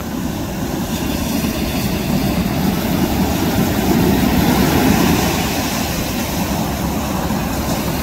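Sea surf breaking and washing ashore, a steady rushing that swells about four to five seconds in.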